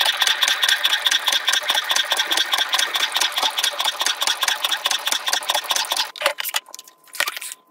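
Cricut Maker 3 cutting machine running a cut on glitter cardstock: a rapid rhythmic mechanical buzz from the carriage and blade moving across the mat. It stops about six seconds in, followed by a few clicks.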